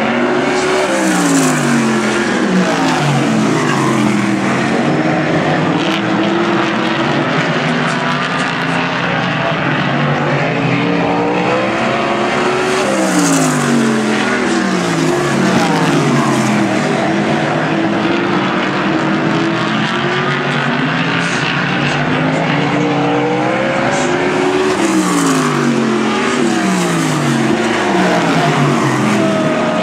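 A field of winged sprint cars racing, their V8 engines running hard at full throttle. Several engine notes overlap, and about every twelve seconds the pack passes close by, its pitch falling as the cars go past.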